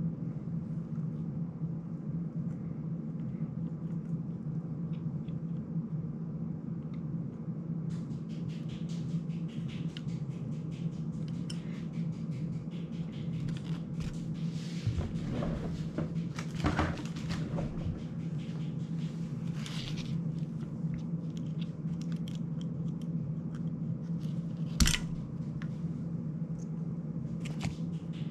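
Small clicks and rustling of an FPV cinewhoop drone's frame and antenna parts being handled and worked on by hand, over a steady low hum. One sharper knock near the end.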